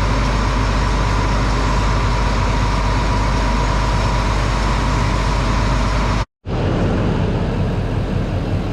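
A large vehicle engine running steadily, with the sound cutting out abruptly for a moment about six seconds in.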